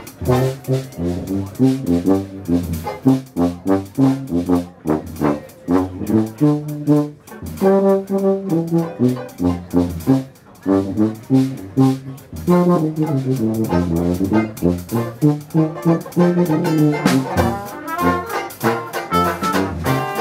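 Dixieland jazz band playing live, with trombone, tuba and banjo over a steady beat.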